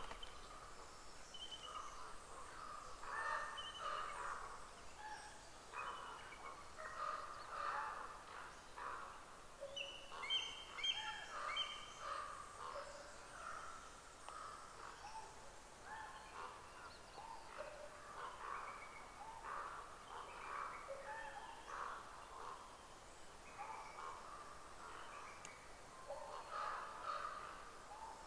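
Birds calling: many short, scattered calls and chirps over a faint outdoor hiss, with a brief cluster of higher, stacked calls about ten seconds in.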